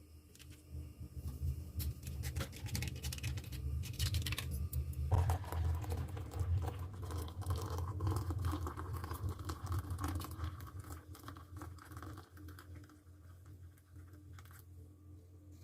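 Desk handling sounds: a run of small clicks and taps, then scratchy rustling from about five seconds in that fades near the end, over a steady low hum.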